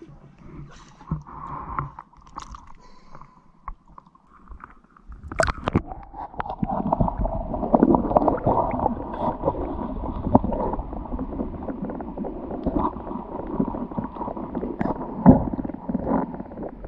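Water lapping and splashing at the surface around a half-submerged camera. About five seconds in the sound turns to a dense, muffled underwater rumble full of crackles: hands digging into sandy seabed among seagrass.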